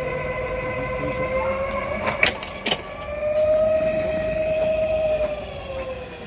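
Greyhound track's mechanical hare (lure) running along its rail, giving a steady whine with overtones that rises slightly about three seconds in and drops in pitch near the end as it passes. Two sharp clacks about half a second apart come a little over two seconds in.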